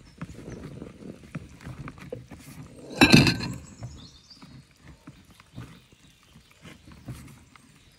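Irregular light knocks and taps, with one louder clatter about three seconds in.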